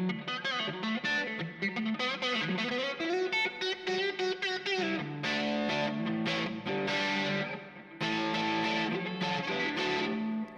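Gibson ES-339 electric guitar played on its neck pickup, a '57 Classic humbucker, through a Kemper amp profile with a boosted, slightly driven tone: single-note lines and held chords that stay clear and don't get muddy, with a short break in the playing about eight seconds in.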